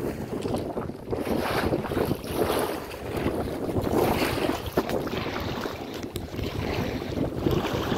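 Wind gusting across the microphone, rising and falling, over the splash of small choppy waves on a lake.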